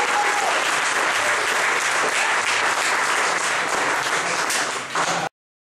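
Audience applauding, cutting off abruptly near the end.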